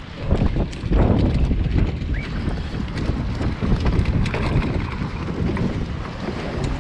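Wind buffeting the microphone in a steady low rumble, with scattered light knocks and slaps as a freshly landed yellow-eye mullet flaps on the pier's timber deck.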